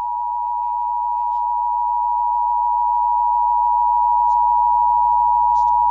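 Emergency alert attention tone from a weather radio warning broadcast: a single steady electronic tone that starts abruptly and holds unbroken, growing slightly louder. It signals that a spoken emergency warning is about to follow.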